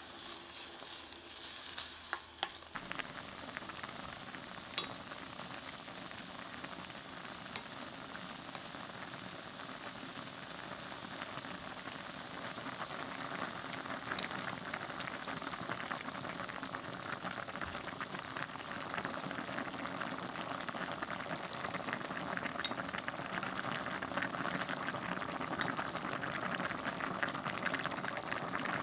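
Spicy soft-tofu stew (sundubu-jjigae) with added stock heating up and coming to a boil: a steady bubbling, crackling simmer that grows gradually louder through the second half. A few sharp knocks near the start.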